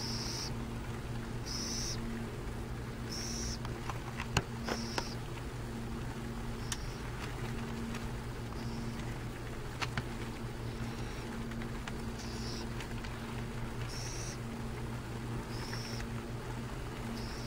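Burrowing owl chick giving its raspy, high-pitched begging hiss, a short call repeated about every one and a half seconds over a steady low hum, with a few sharp clicks around four to five seconds in and near ten seconds.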